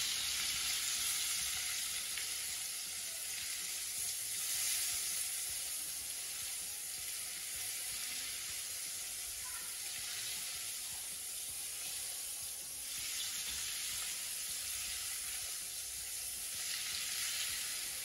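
Coconut-flour-coated crayfish frying in hot oil: a steady sizzling hiss that swells and eases a little from time to time.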